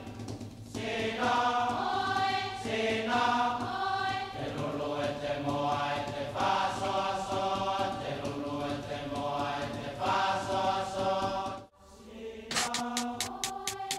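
Music: a group of voices chanting in long held notes. Near the end the voices break off for a moment and come back over a quick, even clicking rhythm.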